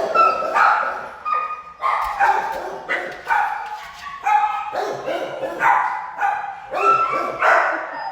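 Kennelled shelter dogs barking repeatedly, about two barks a second, loud throughout.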